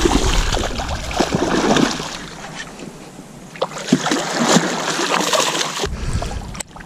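Hooked largemouth bass thrashing and splashing at the surface beside a kayak, loudest in the first two seconds, with a few short splashes around the middle. Wind rumbles on the microphone at the start and again near the end.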